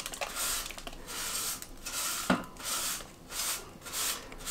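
Paper towel wiping loose grease and food chunks out of a non-stick Cosori air fryer basket, in repeated rubbing strokes about two a second. There is a single knock about halfway through.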